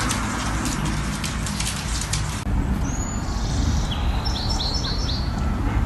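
Small birds chirping outdoors: one rising chirp, then a quick run of about four short chirps, over a steady low rumble. Before this, a hiss with scattered clicks cuts off suddenly.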